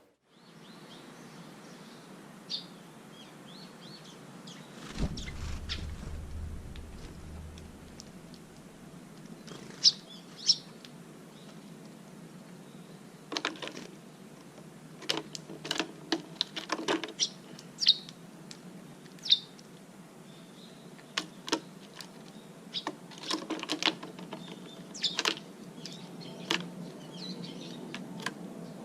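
Small birds chirping in short, scattered calls, mixed with quick sharp clicks and taps that grow more frequent in the second half.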